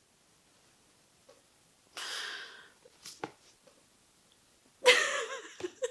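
A woman sniffling and breathing shakily after crying: a breathy sniff about two seconds in, a small click, then a louder, partly voiced sniffle near the end.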